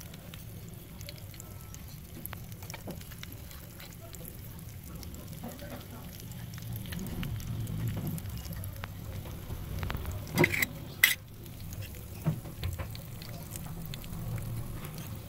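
Hot oil sizzling and crackling steadily as skewered corn sticks deep-fry in a small steel pan. Two sharp knocks stand out about two-thirds of the way through.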